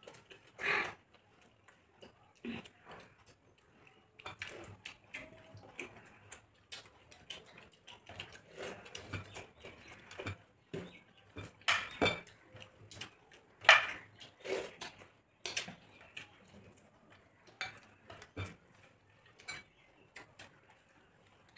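Two people eating a meal by hand at a table: irregular small clicks, clinks of plates and steel bowls, and mouth sounds of chewing.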